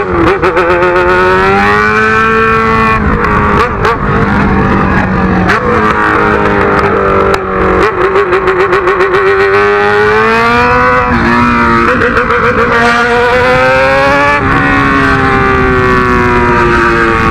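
Yamaha XJ6's 600 cc inline-four engine running loud through a straight-through exhaust pipe with no muffler. The revs rise and fall repeatedly as the bike pulls and shifts, with a rapid stutter in the sound at a few moments.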